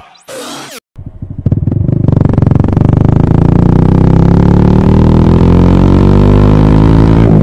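Motorcycle engine running hard at highway speed. It comes in about a second in, and its pitch rises slowly as the bike keeps accelerating.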